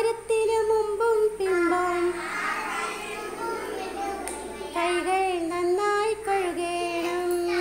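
Young children singing together in Malayalam, echoing the lines of a hygiene song after the teacher, in two sung phrases with a short lull between them about two seconds in.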